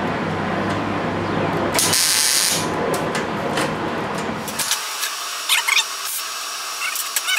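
Wire-feed welder striking a short tack weld on thin sheet steel: a brief crackling hiss lasting under a second, about two seconds in, over a steady low hum. A few short crackles follow near the end.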